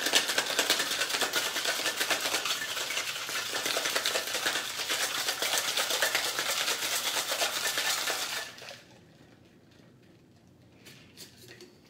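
Ice rattling inside a metal cocktail shaker shaken fast and steadily, chilling a drink. It stops after about eight and a half seconds, and a few faint clicks follow near the end.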